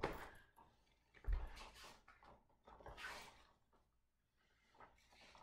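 Several short bursts of cloth rustling and shuffling as a football jersey and gear are tugged and adjusted on the body.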